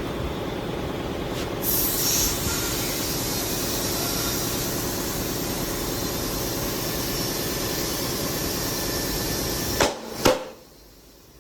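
Compressed air hissing steadily as it inflates a newly mounted Vredestein Centauro NS tubeless motorcycle tyre. Near the end come two sharp pops as the tyre bead seats on the rim, and then the hiss stops.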